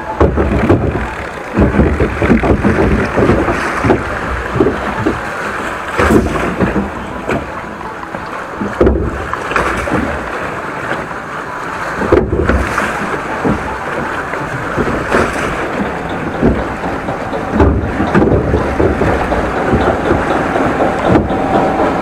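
River rapids ride water rushing and splashing around a round raft as it floats down the channel, with frequent sharp splashes and knocks.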